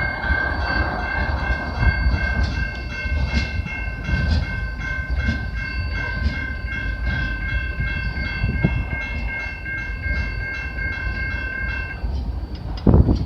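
CN freight train cars rolling past with a low rumble and a regular clatter of wheels on rail joints. Over it runs a steady high-pitched ringing tone, which cuts off about twelve seconds in.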